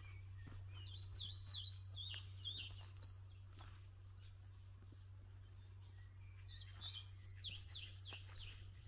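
A songbird sings two phrases of quick, falling notes about five seconds apart, over a steady low hum. Faint footsteps sound on a woodland path.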